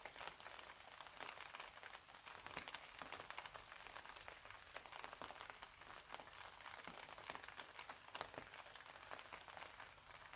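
Quiet, steady rainfall, with many separate drops striking close by.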